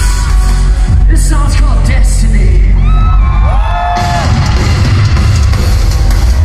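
Live post-hardcore band through a loud concert PA, heard from the crowd: over a heavy bass drone a voice yells and calls out, and about four seconds in the full band kicks in with drums and distorted guitars.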